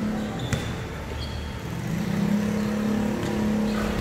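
A motor vehicle engine running with a steady low hum that swells from about one and a half seconds in, while a basketball bounces once on the concrete court about half a second in and again near the end.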